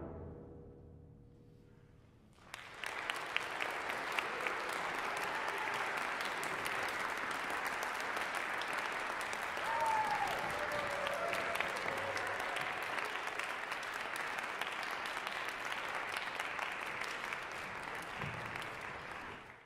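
A symphonic wind band's last chord rings away into the hall's reverberation, then audience applause starts about two and a half seconds in and holds steady.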